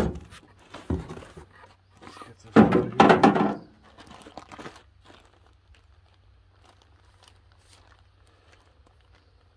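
A cardboard box being handled and unpacked: loud knocks and scrapes of cardboard in the first few seconds, the loudest about three seconds in, then a plastic bag crinkling faintly as it is lifted out.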